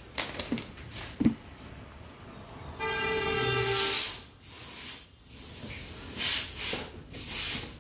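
A few small metal clicks as starter-motor parts are handled, then a horn sounds once, steadily, for about a second. After it come several short bursts of hiss.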